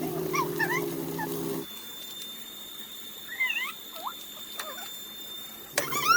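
A young animal, most like a puppy, whimpering in short, high cries repeated every half second or so. A low steady hum runs under it for the first second and a half and comes back near the end.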